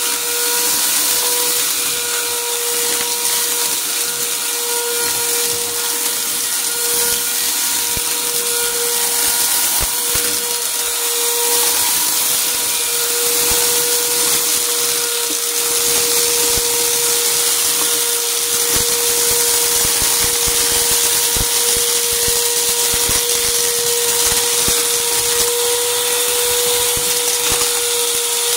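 Upright vacuum cleaner running steadily with a constant humming whine, pushed back and forth over carpet, with many small crunches and crackles as scattered debris is sucked up.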